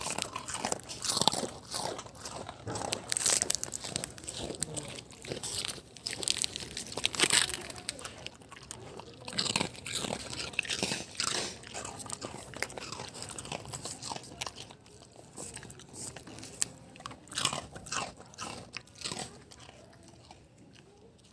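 A dog chewing crunchy cookies: a run of irregular crisp crunches, thinning out and getting quieter toward the end.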